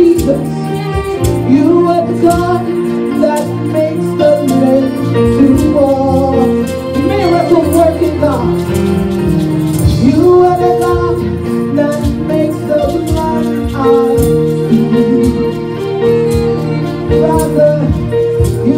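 Live gospel praise-and-worship music: singing over a band's sustained chords and steady drum beat.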